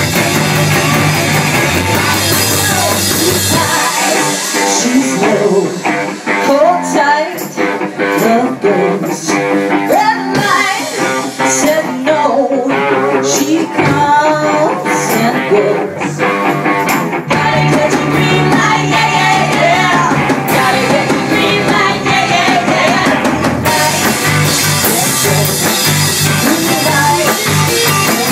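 A live rock band playing, with women singing over guitar, bass, keyboard and drums. About four seconds in the bass and low drums drop out for a stretch of singing over lighter backing, and the full band comes back in around seventeen seconds.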